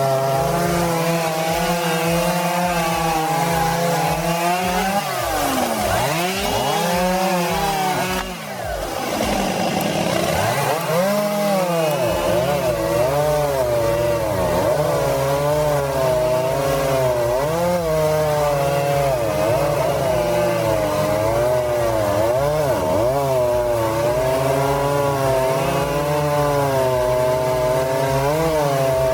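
Chainsaw running and cutting wood, its engine pitch rising and falling over and over as it bogs and recovers under load. A steadier low drone runs beneath, and the sound dips briefly about eight seconds in.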